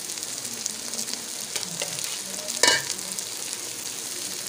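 Pot of rice and sugar for zarda cooking on the heat, giving a steady sizzle with fine crackles. About two-thirds of the way through there is one brief, louder knock.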